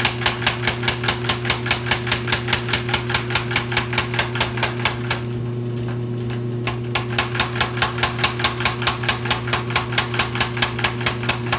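25-pound Little Giant mechanical power hammer striking a red-hot 1-inch mild steel square bar in a fast, even run of blows, about four a second, with a pause of about a second and a half around the middle. The hammer's belt drive hums steadily underneath.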